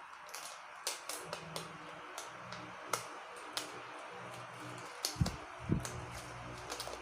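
Scattered light clicks and taps of objects being handled, with two duller thumps a little after five seconds in, over a steady hiss.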